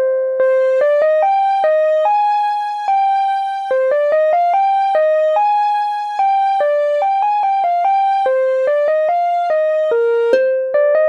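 Instrumental mobile ringtone melody played on a plucked-string sound: a single line of notes, a few a second, each ringing and fading, with a louder note near the end.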